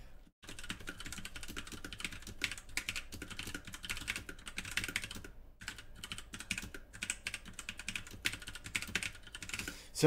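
Typing on an E-Element Z88 mechanical keyboard with Outemu Red linear switches: a fast, steady run of keystroke clacks. There are two brief pauses, one just after the start and one about five and a half seconds in.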